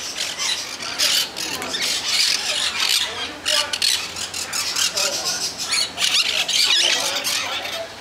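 Parrots screeching and squawking in a rapid run of rasping calls.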